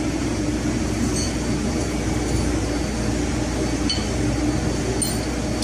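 Steady machinery and ventilation hum of a ship's engine-room workshop, with a few faint metallic clinks of hand tools being handled.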